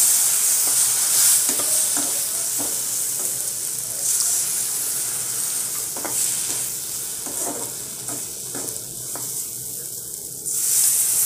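Hot roasted semolina and vegetables sizzling and hissing in a pan as water is poured in a little at a time, with a spatula scraping and tapping against the pan as it is stirred. The sizzle dies down over several seconds, then surges again near the end as more water goes in.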